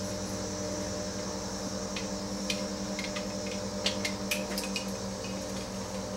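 Steady background hum with a scatter of faint metallic clinks and rattles from about two seconds in: jumper-style battery cables and their clamps being handled.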